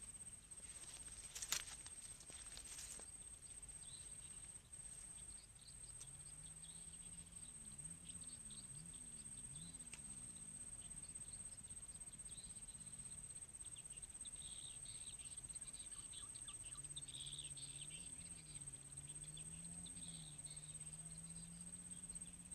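Faint open-country ambience: a steady high-pitched whine with scattered short chirps of small creatures over it. Two sharp knocks come in the first three seconds, the first the loudest. From about seven seconds in, a low drone wavers up and down in pitch.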